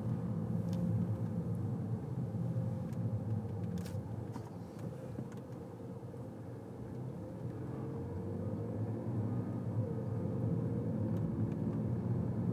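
Car cabin noise: steady low engine and road rumble from a car driving slowly, easing off about halfway through and picking up again.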